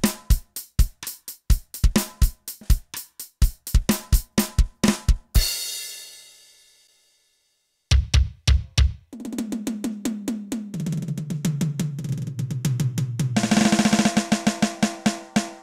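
Drum sounds from a Roland TD-8 electronic drum module: a steady kick-and-snare beat ending on a cymbal crash that rings out into a brief silence. The playing then resumes with a fast fill down the toms, stepping lower in pitch, building into a dense roll with cymbals.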